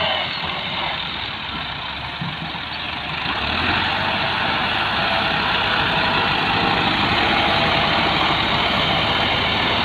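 Diesel farm tractor engines running steadily as the tractors scrape soil with front blades, growing louder about three and a half seconds in.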